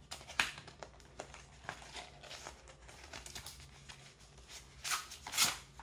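Small cardboard product box being opened by hand: a run of light clicks, crinkles and scrapes as the pull tab and flaps are worked, then two louder rustles near the end.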